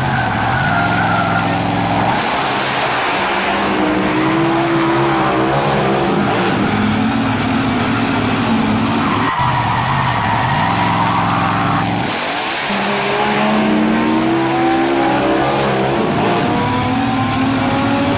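Car sound effects: an engine revving, its pitch climbing and dropping back several times as if shifting gears, over a steady screech of skidding tyres.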